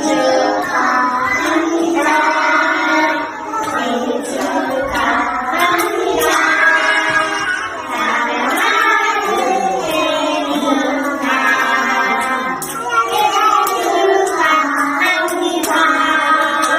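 A group of voices, women and children among them, singing a birthday song together.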